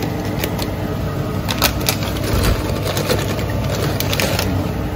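A few light clicks and knocks of dishes or food containers being handled in a kitchen over a steady background hum.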